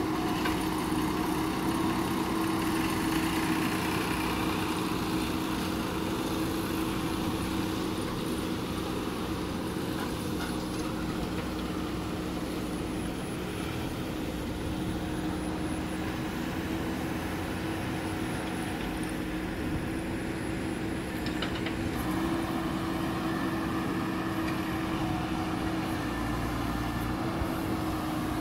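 JCB 3DX backhoe loader's diesel engine running at a steady speed as the backhoe arm works, a constant hum.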